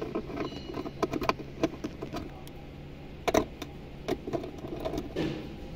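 Scattered clicks and knocks of 10 mm bolts being undone and handled in a 2014 Honda Accord's center console, the sharpest knock a little past the middle, over a steady low hum.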